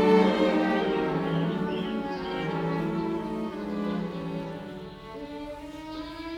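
Background music played on bowed strings, with slow, long-held notes.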